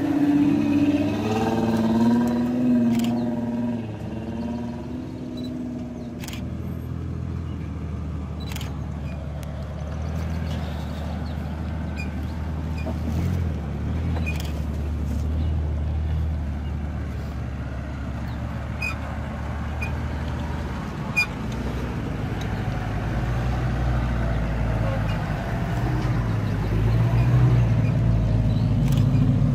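4x4 off-road vehicle engine running under way, its pitch rising and falling for the first few seconds, then running steadily and climbing again near the end, with a few sharp knocks along the way.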